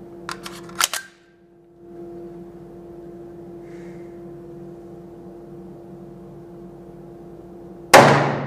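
IMI Desert Eagle pistol fired once near the end: a single very loud shot with a long ringing echo. About a second in, three sharp metal clicks come from handling the pistol.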